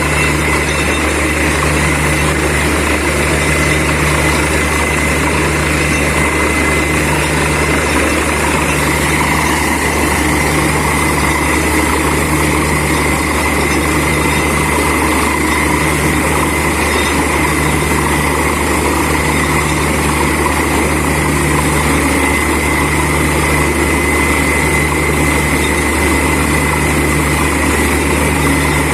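Borewell drilling rig running steadily: the engine and air compressor keep up a loud, continuous drone with a steady high whine and a low pulse about once a second.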